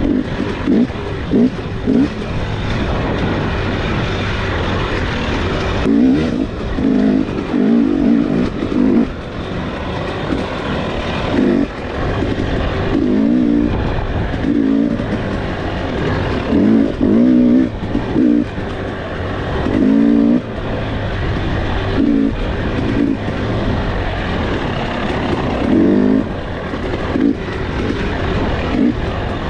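KTM dirt bike engine under way on a rough trail, revving up and falling back again and again as the throttle is worked.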